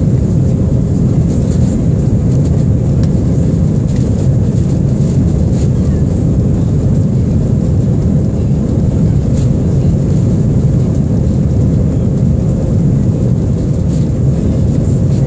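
Steady cabin noise of a British Airways Airbus A319 climbing out after take-off, engine and airflow noise heard from a window seat over the wing. It is a deep, even noise with a thin steady tone riding on top.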